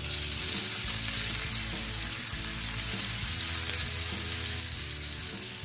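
Whole marinated chicken frying in hot coconut oil in a frying pan, sizzling loudly as it is turned; the sizzle jumps up at the start and eases off toward the end. Soft background music with steady low notes underneath.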